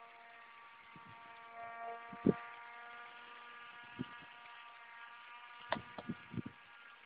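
The 7.2 V electric motor and fan of a homemade radio-controlled hovercraft running at a steady pitch, a thin whine. A few knocks land over it: the loudest about two seconds in, and a quick cluster near the end.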